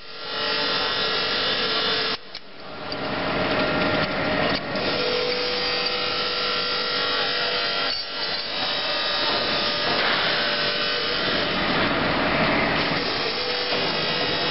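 LW25-80 chain link fence machine running, weaving wire into diamond mesh: a steady mechanical noise with a faint hum of several tones, dipping briefly about two seconds in.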